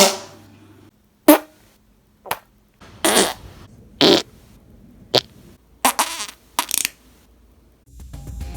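A rapid series of human farts, about eight separate blasts with short gaps between them, most very short and one or two longer. Music begins near the end.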